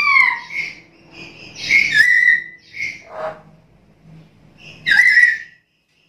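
Black-capped lory calling: a string of loud whistled calls mixed with harsher notes, about five in all, the last and loudest about five seconds in, then it falls silent.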